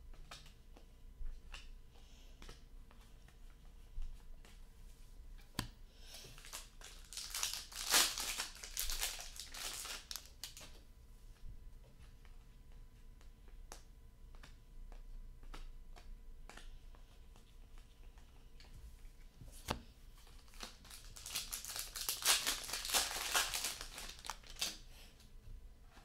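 Foil hockey card pack wrappers crinkling and tearing as packs are handled and opened, in two spells, about six seconds in and again about twenty-one seconds in. Light clicks and taps of cards being sorted in the hands fall between them.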